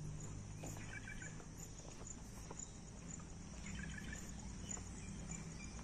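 Outdoor insects trilling steadily in a high, pulsing tone about twice a second, with short bird chirps about a second in and again near four seconds, and faint steps on a paved path.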